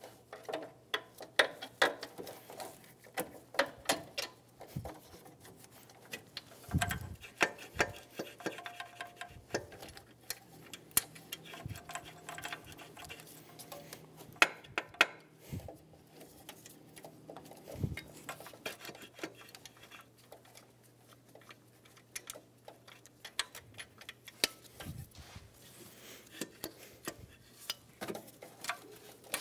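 Irregular metal clicks, taps and knocks as a replacement alternator is handled and worked onto its mounting ears by hand, with a low steady hum underneath. The knocks come thickest in the first few seconds and again around the middle.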